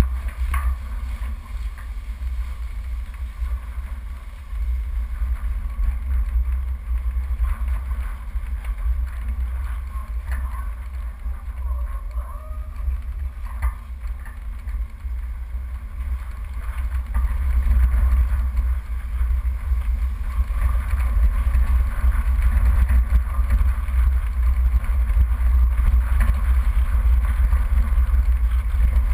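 Four-wheel-drive off-road vehicle driving along a rough dirt track: a steady low rumble of engine and wind on the microphone, with a few knocks, getting louder a little past halfway.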